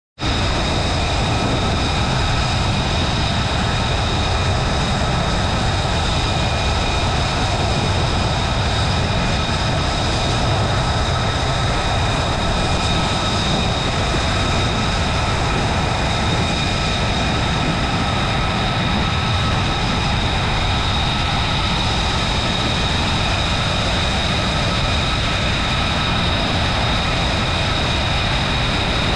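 F-35B's Pratt & Whitney F135 jet engine idling on deck: a steady high whine of several even tones over a deep rumble and rushing noise, unchanging throughout.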